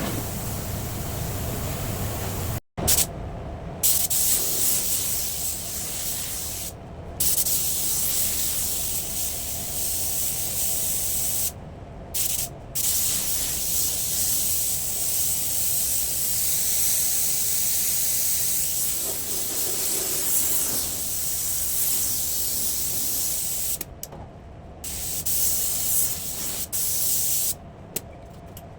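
Automotive paint spray gun hissing as it sprays the fender, in long passes with brief stops when the trigger is released.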